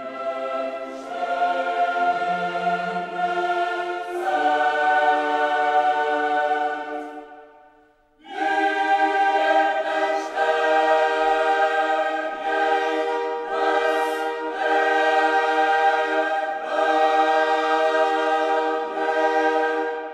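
Background music of long, held choral chords that change every few seconds. It fades out about seven seconds in and starts again about a second later.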